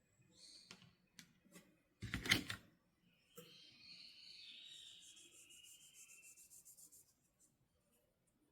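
Toy packaging being handled during an unboxing: a few light clicks, a short loud crinkling rustle about two seconds in, then a few seconds of steady rasping rub that stops near the end.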